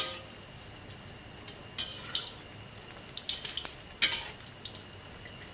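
Oil sizzling steadily around a minced-pork omelet deep-frying in a wok over medium-low heat, with a ladle clicking and scraping against the wok a few times, loudest about four seconds in.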